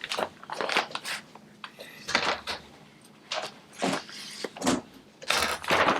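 Wrapping paper being torn and crumpled as a gift is unwrapped, in a run of irregular rustling rips, loudest near the end.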